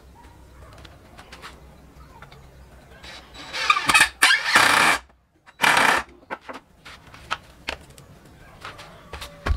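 A rooster crowing loudly about three seconds in, then a second short loud burst after a brief gap, with faint knocks from wood being handled.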